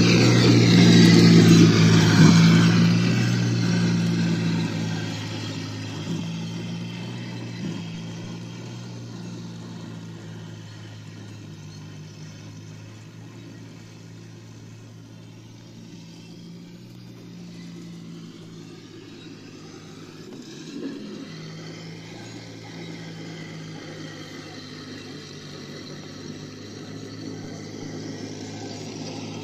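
1/6-scale RC M3 half-track running: a steady whine from its drive motors and gearing with track noise. It is loudest in the first few seconds while close, fades as the model moves away, and grows again near the end as it comes back.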